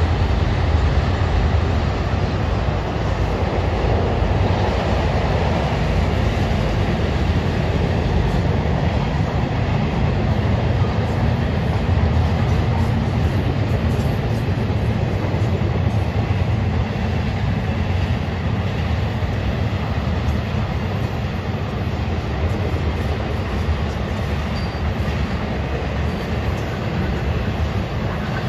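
Florida East Coast Railway freight train's cars (autoracks, double-stack containers and trailers) rolling across a steel girder bridge: a steady low rumble of wheels on rail.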